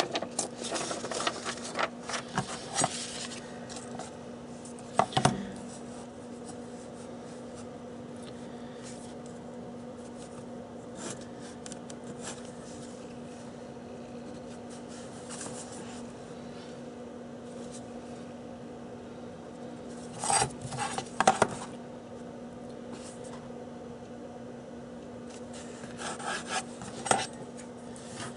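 Paper and a ruler being handled while a template is measured and marked out: scattered short rubbing and scratching noises, a cluster at the start and others about five, twenty and twenty-six seconds in, over a steady low hum.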